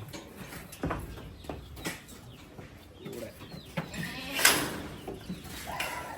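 Goats bleating in a wooden goat shed, with scattered knocks and clatter. There is a louder noisy burst about four and a half seconds in.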